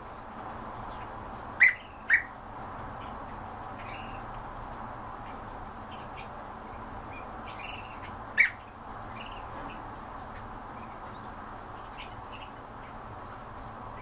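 European bee-eaters calling: three loud short calls, two in quick succession about two seconds in and another about eight seconds in, with fainter short calls in between.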